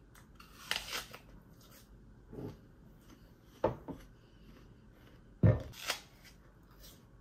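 A few short, sharp knocks and scrapes of objects being handled in a small room, several of them in close pairs, the loudest about five and a half seconds in.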